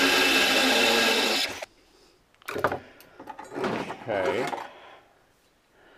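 Cordless drill running under load as it bores through a steel angle bar, a steady whine that stops about one and a half seconds in. A few sharp knocks follow in the middle.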